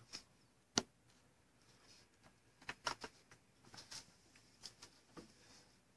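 Quiet room with a handful of short, faint clicks and taps: one just under a second in, then a small cluster and a few scattered ones later.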